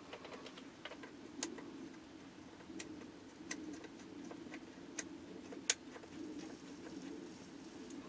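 Faint low steady hum with a few sharp clicks and ticks scattered through it, the sharpest click a bit over halfway through.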